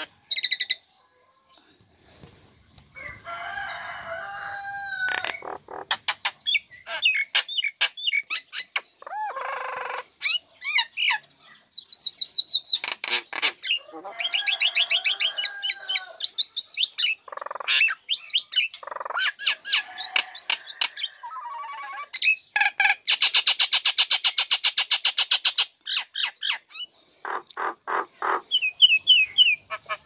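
Female common myna (jalak nias) in full song: a varied stream of gliding whistles, chatters and sharp clicks, with a long, rapid rattle about three-quarters of the way through.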